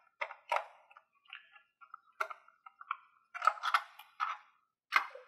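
Screwdriver turning out the screw that holds the extended thermal cover on a plastic time-switch base: a run of irregular small clicks and scrapes, with a cluster of them about three and a half to four seconds in.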